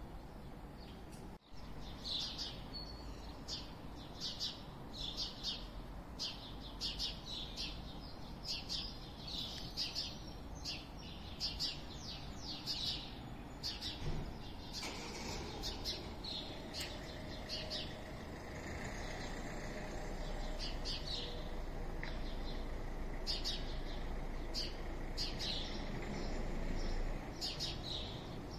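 Small birds chirping in short, high calls, one or two a second, over a low, steady rumble of town background noise. From about halfway a steady hum joins in and grows a little louder before dropping away near the end.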